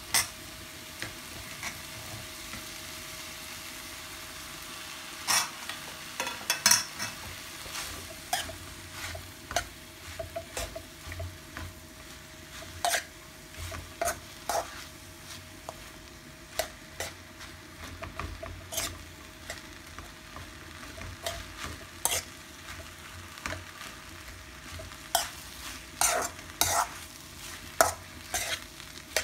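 Pre-cooked rice with mushrooms and peas sizzling as it is stir-fried in a wok, a metal spoon scraping and knocking against the pan at irregular intervals.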